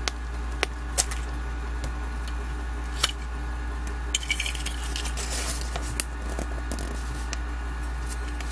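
A small plastic surprise-egg capsule and its paper insert being handled up close: scattered light clicks of plastic, and a stretch of paper crinkling about four to six seconds in. A steady low hum runs underneath.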